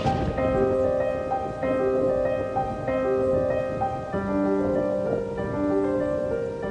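Instrumental song intro: a piano or keyboard plays a repeating melody over held chords, with the chords changing about every second and a half. No singing.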